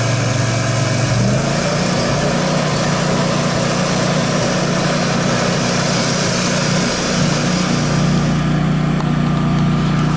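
Briggs and Stratton PowerProtect PP26 standby generator's air-cooled V-twin engine running steadily on a test run, carrying the house's load on a simulated power outage. Its hum steps up in pitch about a second in.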